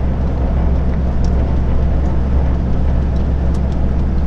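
Steady low engine drone and road noise heard inside a lorry's cab cruising at motorway speed.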